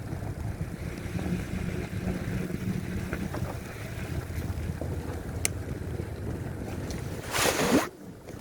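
Wind buffeting the microphone of a bike-mounted or handheld camera while cycling through a snowstorm: a steady low rumble of noise. Near the end a loud rush of noise lasts about half a second, then cuts off suddenly.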